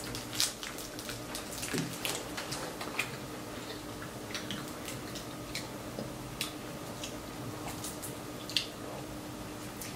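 Close-up eating sounds: a dozen or so scattered wet smacks and clicks from chewing and from fingers pulling apart fried head-on shrimp, over a faint steady hum.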